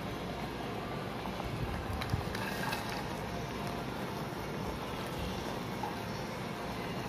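Steady hiss and low rumble of sauce simmering in a non-stick kadai on the stove, with a few faint clicks and a light knock about two seconds in.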